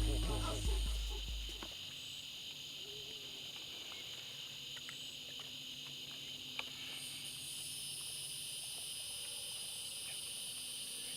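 Steady night chorus of crickets and other insects, several high trilling tones held level throughout, as background music fades out in the first couple of seconds. A single faint click comes about six and a half seconds in.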